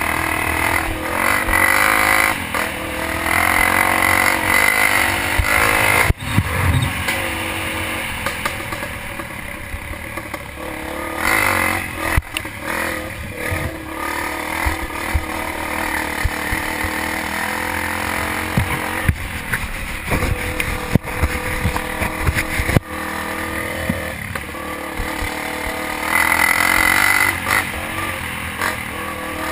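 Dirt bike engine running and revving up and down on a trail ride, with a few sharp knocks from the rough ground.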